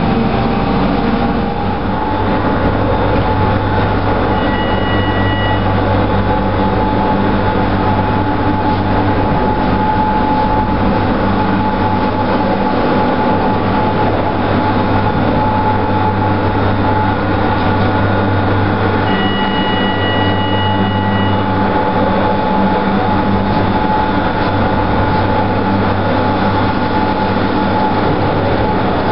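Doppelmayr eight-seat detachable gondola running through its station: a steady mechanical hum and rumble from the lift machinery as the cabins are carried through the terminal. Two short electronic beeps sound, one about five seconds in and a longer one about twenty seconds in.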